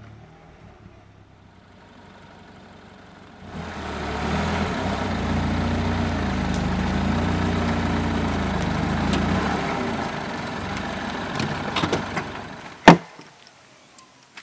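A Mini Countryman's engine comes in about three seconds in and runs steadily for several seconds, then dies away. A single sharp loud knock follows near the end.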